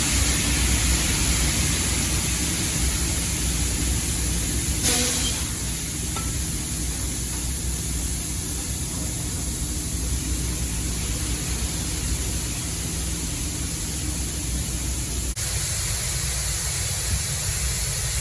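Shelled corn pouring out of a hopper-bottom grain trailer into an elevator dump pit: a steady rushing hiss over a low engine rumble, with a sharp click about fifteen seconds in.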